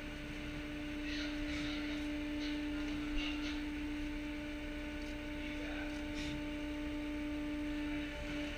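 Steady machinery hum: one constant droning tone over a noisy rumble, unchanging throughout.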